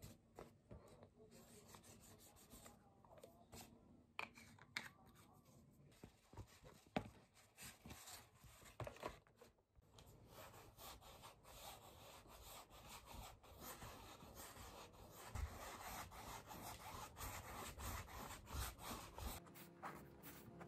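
Faint rubbing and scratching of a paintbrush and a pencil working on a stretched canvas, with scattered light clicks and knocks.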